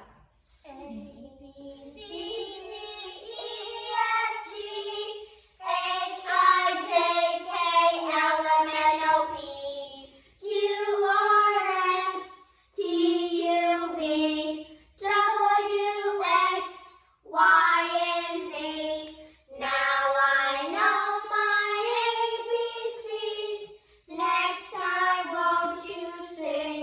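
A child singing a song in phrases of a few seconds each, with short breaks between them.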